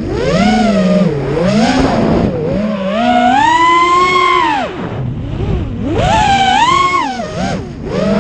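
FPV quadcopter's electric motors whining, the pitch climbing and falling again and again with the throttle, highest about three to four seconds in.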